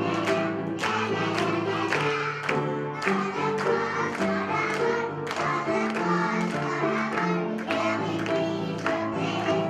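A group of young children singing a song together over an instrumental backing with a steady beat.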